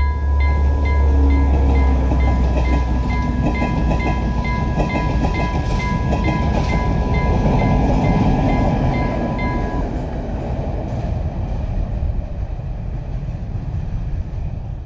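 Level crossing warning alarm beeping about twice a second over a steady tone, as a train passes with a low engine rumble and rail noise. The alarm cuts off about ten seconds in while the train noise carries on.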